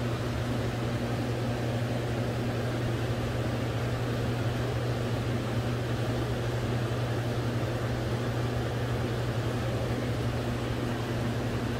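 Steady low machinery hum of an aquarium gallery, with a fainter higher tone running over it.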